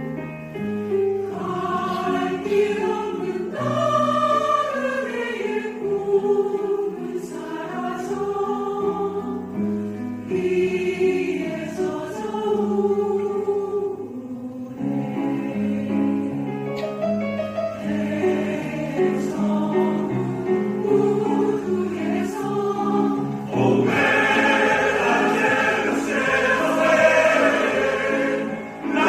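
Choir singing a sustained, slow-moving passage, swelling fuller and louder about four-fifths of the way through.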